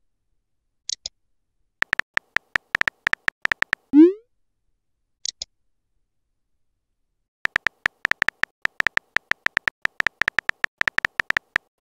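Texting Story app sound effects: runs of rapid keyboard-tap clicks as a message is typed, a short rising bloop about 4 seconds in as a message is sent, and a quick high double blip about a second in and again about five seconds in as messages arrive.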